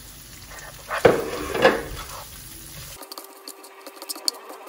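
A nylon spatula stirs potato cubes and chicken liver in a spice paste in a non-stick frying pan, scraping against the pan with two louder strokes about a second and a second and a half in. After that come quick small ticks and light sizzling.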